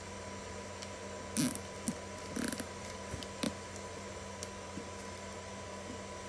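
A few short clicks and rustles of hands handling things, scattered through the first four or five seconds, over a steady background hum with a faint constant tone.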